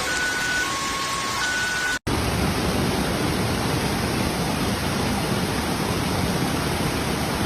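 Steady hiss of heavy rain. About two seconds in it cuts abruptly to another stretch of the same kind of rain noise. Before the cut, a few short high steady tones sound faintly over it.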